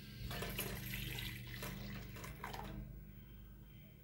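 Milk being poured from a steel vessel into a steel pan, a running, splashing pour that lasts about two and a half seconds and then tails off.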